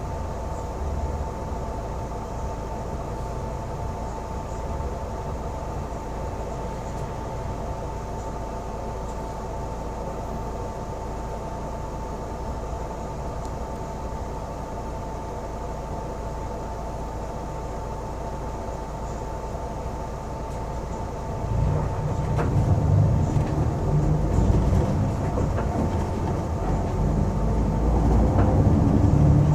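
Cabin noise inside a moving double-decker city bus: steady low engine and road rumble with a thin steady whine. About twenty seconds in, the rumble grows clearly louder as the bus speeds up.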